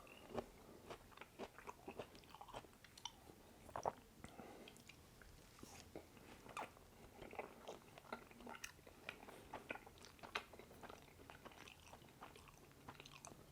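Faint close-miked chewing and wet mouth clicks of a person eating oily hand-pulled noodles with cumin lamb, irregular smacks scattered throughout.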